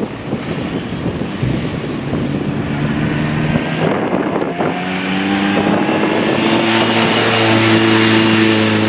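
Motorcycle engine running under wind noise on the microphone, its note growing louder and rising slightly in pitch about halfway through.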